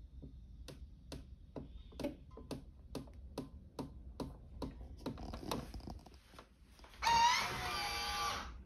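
FoodSaver vacuum sealer working: steady ticking, about two ticks a second, for several seconds. Then, about seven seconds in, a louder pitched sound lasts about a second and a half.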